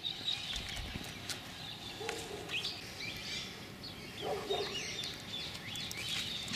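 Several birds chirping and calling, with short high chirps throughout and a lower call about two seconds in and again a little after four seconds.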